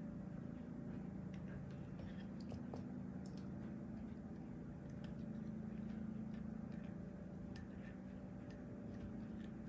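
Faint, scattered light clicks and scrapes of a small hex key and metal parts being handled as screws are worked out of a Staccato P pistol's frame and grip module, over a steady low hum.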